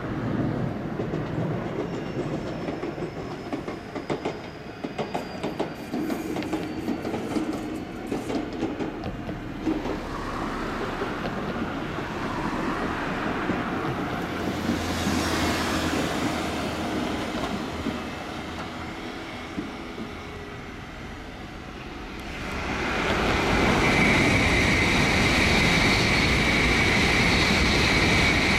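Shizuoka Railway A3000-series electric train running into a station, its wheels clattering over the rail joints, with a faint falling whine early on as it slows. In the last six seconds an N700A Shinkansen passes at speed: a loud, steady rush with a sustained high whine.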